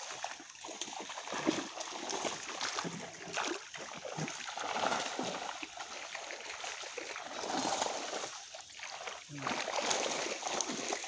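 Water splashing and churning in uneven surges as fish thrash inside a seine net being hauled into shallow water.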